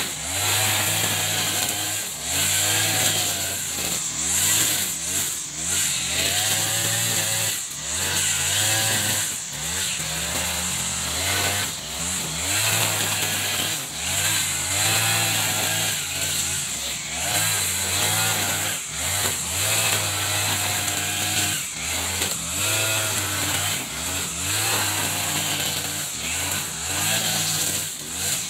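Echo RM435 40cc two-stroke brush cutter running at high speed, its trimmer head cutting through thick goosegrass. The engine note sags and recovers over and over, with a dip in loudness every second or two as the head is swept side to side through the grass.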